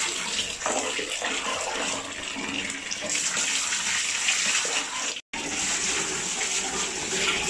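Water poured from a plastic dipper over a toddler's head, rushing and splashing steadily, with a brief break about five seconds in.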